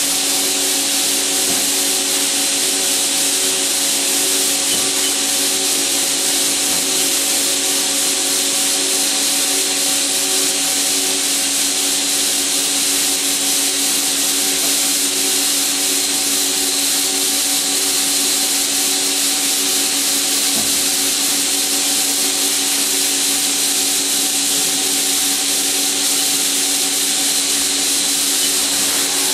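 Haas SL-30T CNC lathe running steadily: a constant high hiss with several steady hum tones underneath, one of them pulsing evenly.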